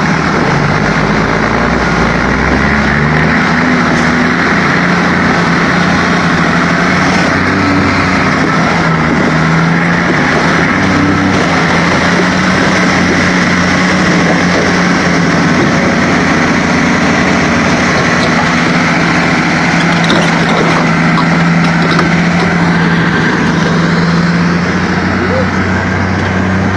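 Heavy diesel engine of a crawler tractor running steadily under load as its blade pushes a loaded log truck uphill; a loud, deep, continuous drone.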